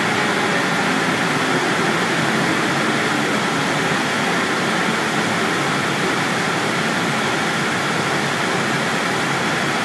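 Steady, even rushing noise of moving air, like a large cooling fan running, with no change in level or pitch.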